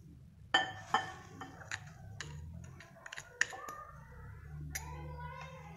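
A spoon clinks and taps against a glass mixing bowl several times as powdered sugar is added, some taps leaving a brief ringing tone, over a low steady hum.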